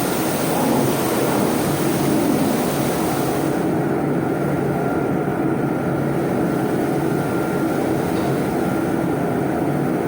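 High-pressure water jet washing down a ship's steel deck: a loud, steady rushing noise. About three and a half seconds in, the hissy top end drops away and a duller rush carries on.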